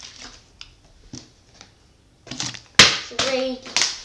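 A flipped plastic water bottle lands with a sharp clack about three seconds in, the loudest sound. A lighter knock comes about a second in. A child's voice counts "three" right after the landing.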